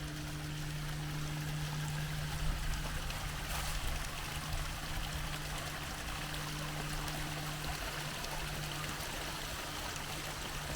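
A stream running, an even rush of flowing water, with a steady low hum underneath.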